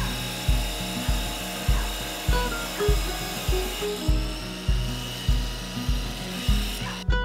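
Background music with a steady beat, a little under two beats a second, over the steady hiss of a small tabletop wet tile saw cutting tile. Near the end both stop abruptly and acoustic guitar music begins.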